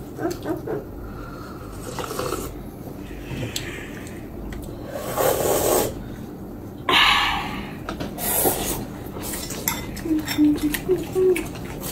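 Mealtime eating sounds: chopsticks clicking and scraping against porcelain bowls, with two longer noisy slurps of noodles about five and seven seconds in, and more clicking near the end.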